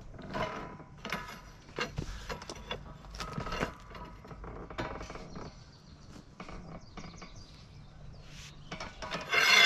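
Steel rebar being levered into a bend with a black iron pipe braced in a pallet fork frame: irregular metal clicks, knocks and scrapes as the pipe and bar shift against the steel frame, ending in a loud metallic clang with a ringing tail.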